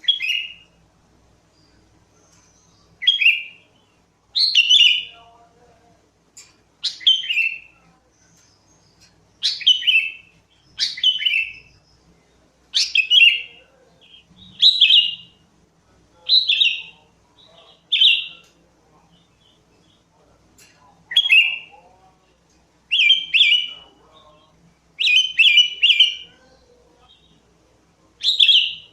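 Sooty-headed bulbul (kutilang) singing: short bright phrases, each under a second and falling in pitch, repeated every second or two. Toward the end the phrases come in quick runs of two or three notes.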